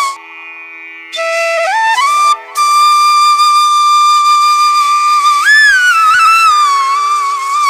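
Background music: a solo flute-like melody with long held notes that slide between pitches, coming in about a second in.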